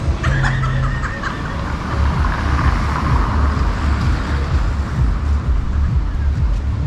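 Road traffic on a wet street: a vehicle's tyre hiss swells and fades about three seconds in. An uneven low rumble of wind buffets the microphone throughout.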